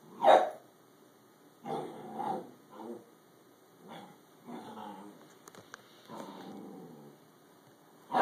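Dogs vocalizing as they play-wrestle: a bullmastiff puppy and an older dog making a string of short growls, with a loud one right at the start and another at the end.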